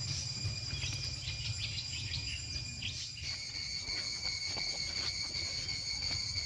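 Insects in the undergrowth buzzing steadily in several high tones, which shift and grow stronger about three seconds in, over a low rumble.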